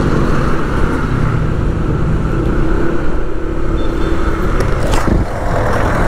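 Road traffic and a vehicle engine running as a steady low rumble, with a short click about five seconds in.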